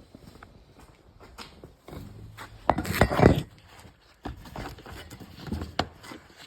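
Irregular knocks and clunks of hard objects being handled, with a louder cluster of clunks about three seconds in.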